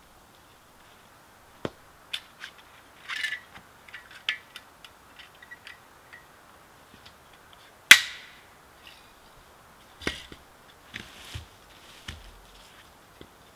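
Dry dead limbs cracking and snapping as they are broken up by hand for firewood, with smaller twig snaps throughout and one loud sharp snap about eight seconds in.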